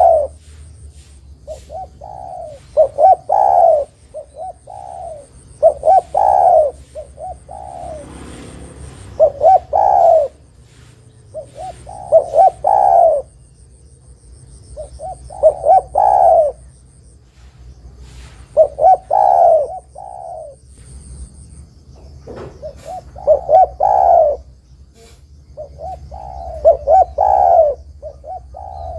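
Spotted dove cooing: a phrase of several quick notes that ends in a longer, fuller coo, repeated about every three to four seconds. This is its calling song, the one used as a lure that other doves answer.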